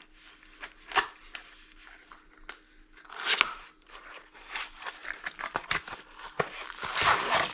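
Power cords and their packaging being handled, with rustling and a series of clicks and knocks; a sharp click about a second in and a louder burst of rustling near the end.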